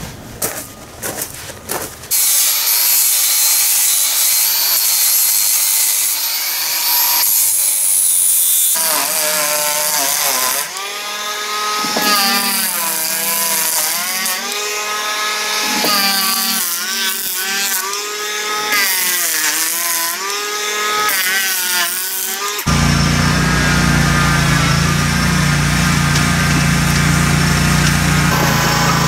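A few knocks of wood being handled, then a handheld electric power planer running and shaving the laminated wood keel, its motor pitch dipping and recovering with each pass. About 23 seconds in it gives way to the steady running of a zero-turn riding mower's engine.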